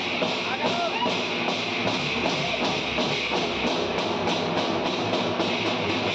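Street procession drum band playing: big slung bass drums beaten with sticks and large hand cymbals clashing, keeping a steady, loud beat, with crowd voices mixed in.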